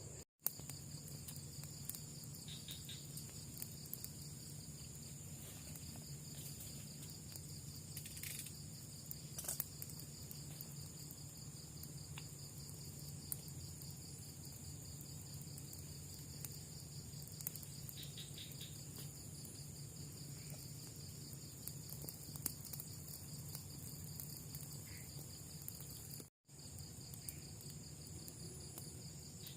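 Night-time insect chorus, crickets trilling steadily: one fast pulsing high trill and a second, higher steady one, over a low steady hum. The sound drops out completely for an instant twice, once near the start and once near the end.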